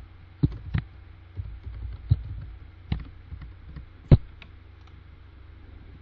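Computer keyboard keys tapped as a word is typed: about ten irregular clicks, with one sharper click about four seconds in, over a steady low hum.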